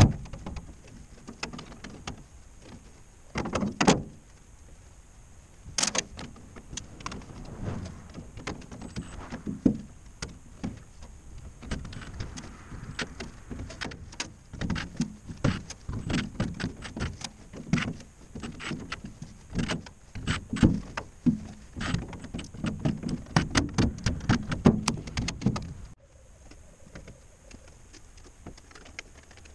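Irregular knocks and clanks of metal on metal from work on a steel cargo door and its frame, sparse at first and then coming thick and fast, until they stop abruptly near the end.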